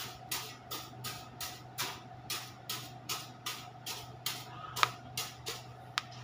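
Steel trowel scraping through a wet cement mortar bed in quick, even strokes, about three to four a second, as the bed is scored before laying a floor tile. Two sharp metallic clinks come near the end.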